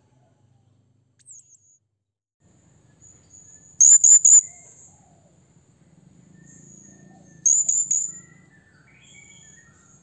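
Blue-crowned hanging parrot (serindit) giving shrill, high-pitched calls, the call used to challenge a rival: two loud bursts of about three sharp notes each, about four seconds in and again near eight seconds, with fainter thin calls between them.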